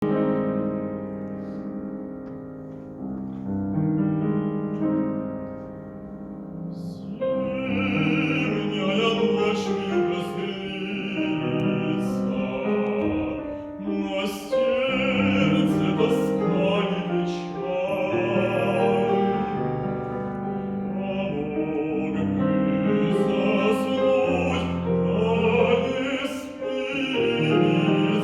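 Piano introduction, then a male classical singer enters about seven seconds in and sings a Russian folk song in operatic style, with piano accompaniment.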